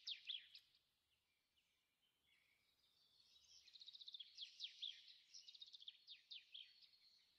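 Faint birdsong: quick high trills and rapid downward-sweeping chirps. A short burst at the start, then a longer phrase beginning about two seconds in.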